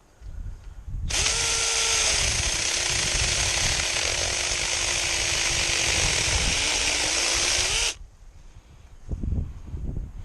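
Mini cordless chainsaw running for about seven seconds as it cuts into a dry willow branch, its motor pitch sagging under load and rising again just before it stops.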